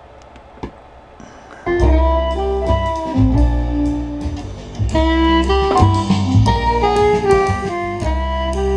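Music played through a homemade five-transistor, 12-volt, 2-watt breadboard amplifier into a loudspeaker cabinet, starting suddenly about two seconds in after a faint click. The amplifier is passing the signal and sounds fine.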